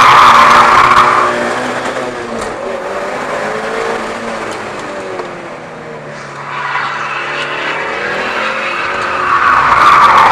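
Mitsubishi Lancer Evolution VIII's turbocharged four-cylinder engine running hard on track, with loud tyre noise from its hardened slick tyres in the first second and again from about nine seconds in as the car corners. In the quieter middle stretch the engine note falls and then picks up again.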